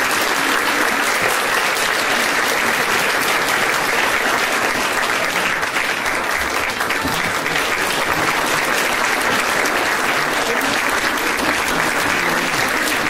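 Large audience applauding, a dense, steady clapping that holds at the same level throughout.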